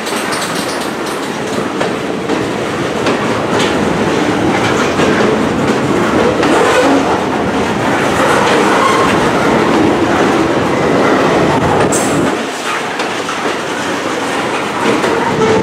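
Freight train of covered hopper cars rolling past close by, a steady rumble of steel wheels on rail with clickety-clack over the rail joints.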